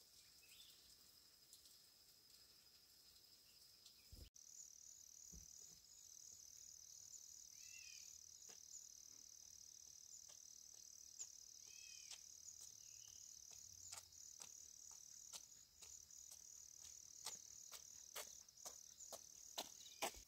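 Faint, steady high-pitched trilling of insects. About four seconds in it gives way to a higher, pulsing chirr. A few short bird chirps come through, and in the second half there are scattered light clicks and snaps.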